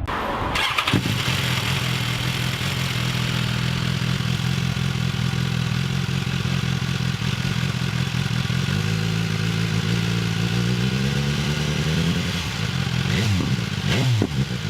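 BMW S1000R inline-four engine running through a titanium slip-on exhaust, idling steadily. The revs climb gently about halfway through, then rise and fall quickly a few times near the end.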